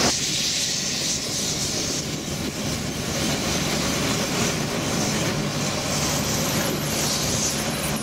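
New Holland combine harvester running close by: a steady engine drone with a continuous hiss from the machine.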